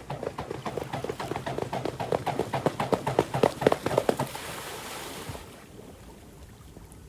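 A swan pattering across the water surface, with quick rhythmic slaps of about six a second that grow louder. About four seconds in they give way to a short rushing splash.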